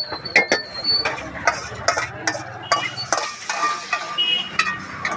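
Metal slotted spatula scraping and knocking against a metal wok: an irregular string of sharp clanks, some ringing briefly.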